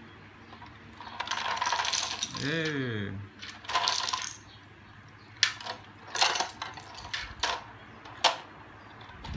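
Wooden puzzle pieces sliding and clattering out of a tipped toy garbage truck's bin onto a tiled floor, in two rattling spills, then several separate sharp clicks as single pieces drop onto the tiles.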